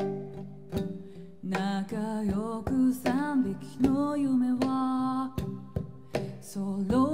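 A woman singing, with long held notes, to her own strummed acoustic guitar.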